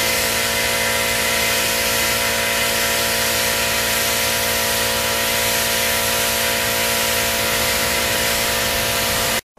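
A power tool running steadily: a loud, even hiss with a steady whine, cutting off abruptly near the end.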